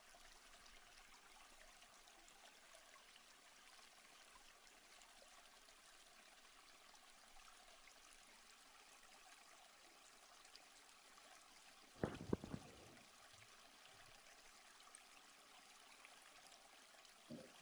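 Faint, steady rush of a waterfall, very quiet and hissy. About twelve seconds in, a brief sharp clatter of a few knocks stands out above it.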